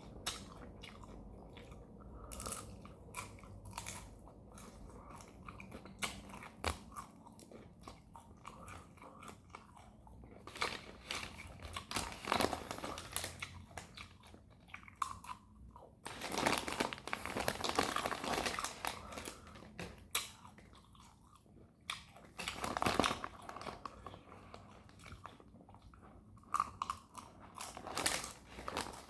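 Close-miked chewing of a crunchy dried fish snack: crisp crunches and bites, with several louder stretches of dense chewing.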